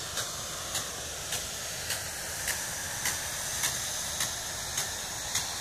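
Hose-reel irrigator's rain gun spraying water: a steady hiss of spray with a short sharp tick a little under twice a second, the gun's impact arm striking the jet.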